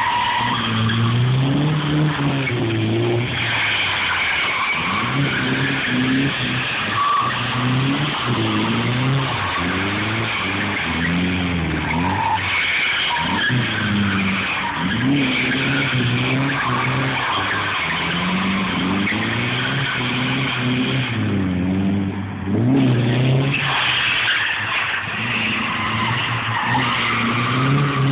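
Nissan S13 drifting: its engine revs rise and fall again and again, every couple of seconds, as it slides, with the tyres squealing across the tarmac throughout. Near the end there is a brief dip and then a sharp rise in the revs.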